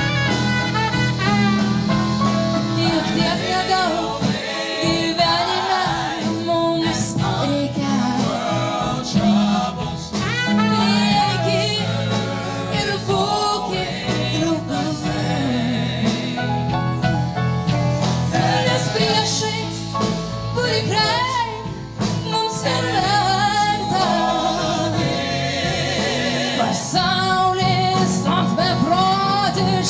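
Live performance of a slow gospel-soul song: a woman singing lead into a microphone with wavering, ornamented runs, over band accompaniment.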